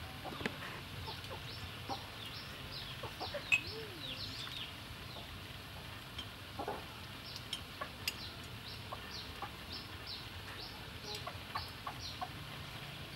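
Chickens clucking and peeping in runs of short, high, falling calls, with now and then a light click of chopsticks against bowls.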